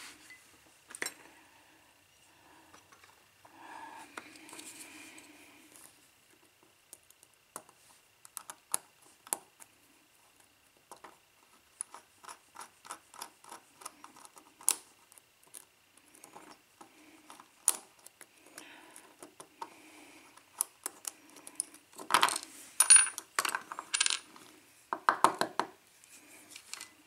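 Small metal clicks and taps from a lock cylinder being handled and worked with a pick as it is taken apart. Near the end comes a run of louder metallic clinks that ring briefly.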